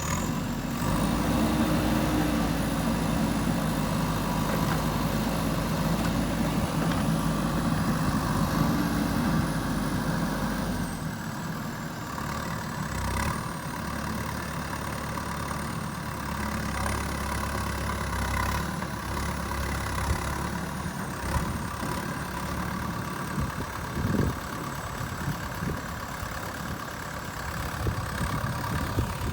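JCB 3DX backhoe loader's diesel engine running, working harder and louder for the first ten seconds or so, then settling to a lower, steadier run, with a few short knocks.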